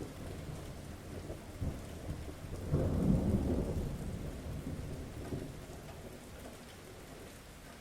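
Steady rain falling, with a low roll of thunder that swells about three seconds in and then slowly dies away.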